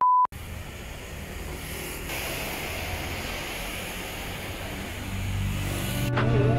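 A short, steady electronic beep, then outdoor street noise with a steady rush of traffic that swells slightly towards the end. Music with a beat comes in near the end.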